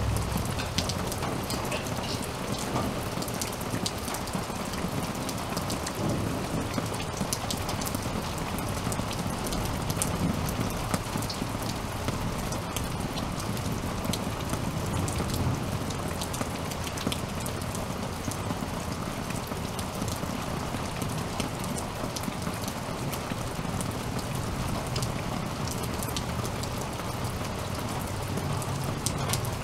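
Steady rain falling, with sharp ticks of individual drops striking close by, and low rumbles of thunder that swell a couple of times.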